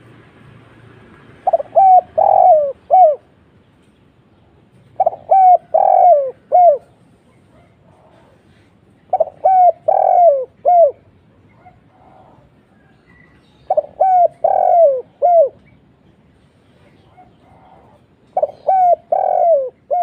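Spotted dove cooing: five phrases about four seconds apart, each of four falling coos, two short, then a longer one, then a short one. The last phrase is cut off.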